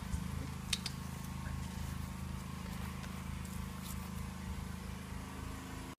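Steady low drone of a pressure washer's engine running, with a few faint clicks and rustles as a cat works at a plastic puzzle feeder on tissue paper.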